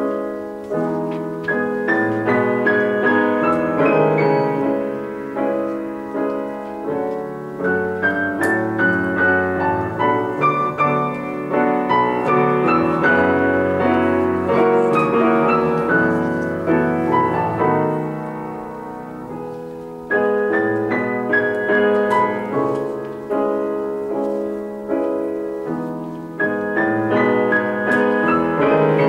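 A grand piano played four-hands: a continuous flow of notes in both the low and the high register. The playing eases off to a softer stretch about two-thirds of the way through, then picks up again.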